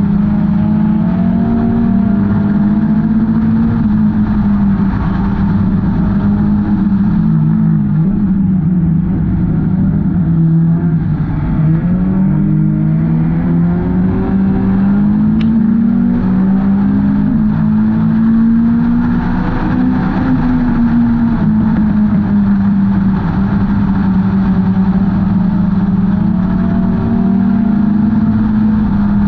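Hornets-class race car engines running hard, several engine notes overlapping, their pitch dipping and climbing again every few seconds as the cars lift off and get back on the throttle.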